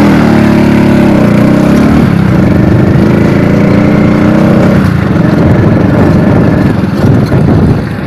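Small motorcycle engine running steadily and loudly, its pitch dipping slightly about a second in; the note turns rougher and less even about five seconds in.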